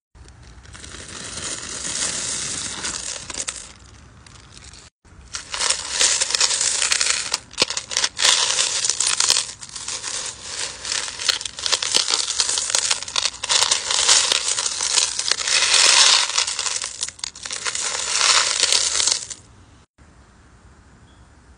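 Polished tumbled crystal stones clattering and clinking against each other as a hand stirs and scoops through a bowlful of them, in dense rapid clicks. The sound cuts out briefly about five seconds in and falls much quieter near the end.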